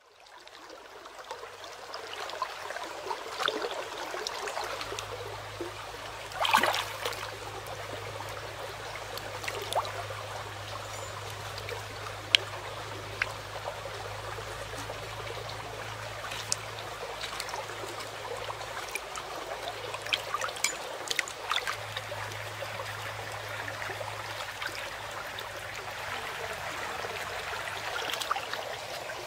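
Shallow stream trickling over stones, with scattered splashes and sharp clicks from hands and a knife working vegetables in the water. It fades in over the first couple of seconds.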